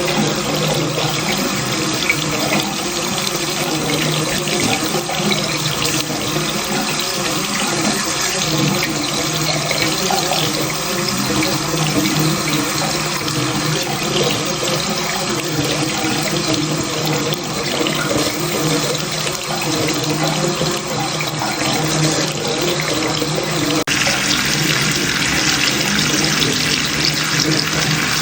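Water running steadily from a tap into a bathroom sink, a continuous splashing rush. Near the end the flow turns brighter and hissier.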